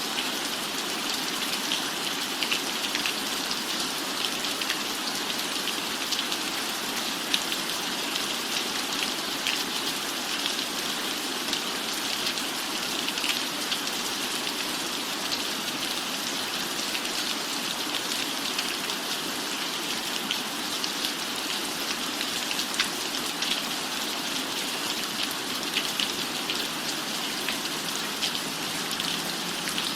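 Steady rain on a cabin roof: a constant hiss scattered with many small, sharp drop ticks.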